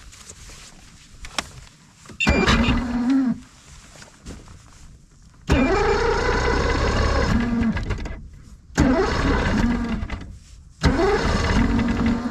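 Bass boat's outboard motor being cranked in four separate attempts, each a second or two long: the pitch sweeps up, holds and then drops away.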